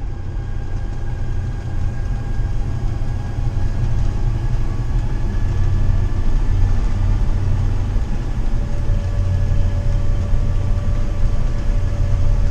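Class A motorhome's engine running: a steady low rumble with a few faint whining tones above it, growing a little louder over the first several seconds.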